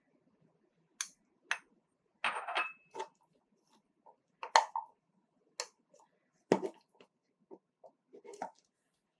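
Baking tools handled at a kitchen worktop: scattered light clinks and taps of utensils against bowls, a short scraping stretch a couple of seconds in, and one heavier knock about six and a half seconds in.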